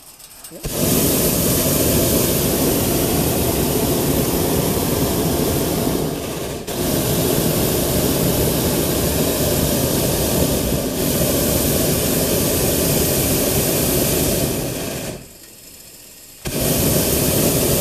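Hot-air balloon's propane burner firing in long blasts, a steady noise that cuts out briefly about six seconds in and again for over a second near the end before firing once more.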